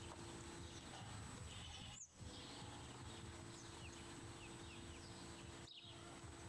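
Faint outdoor ambience: a low steady hum with small birds chirping now and then, dropping out briefly twice.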